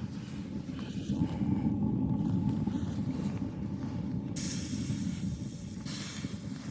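Strong blizzard wind rumbling on the microphone, with a louder hissing gust starting about four seconds in.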